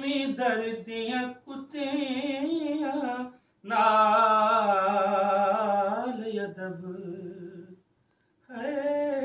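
A man singing a Sufi kalam with no instruments, in ornamented, wavering phrases. Partway through he holds one long note that slides down as it fades, and after a short pause a new phrase begins near the end.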